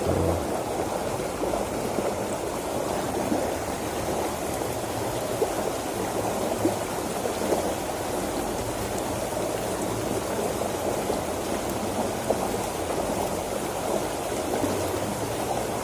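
Fast-flowing water in a narrow irrigation ditch, rushing and babbling steadily.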